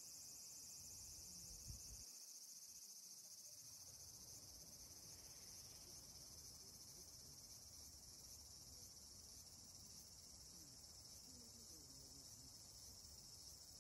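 Faint, steady high-pitched chirring of insects, a continuous rapid trill.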